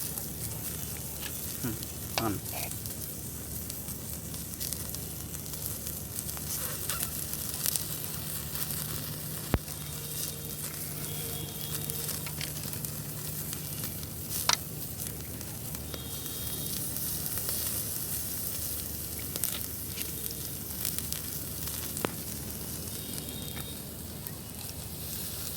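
Chicken pieces sizzling on a grill over a wood fire: a steady hiss with a few sharp pops here and there.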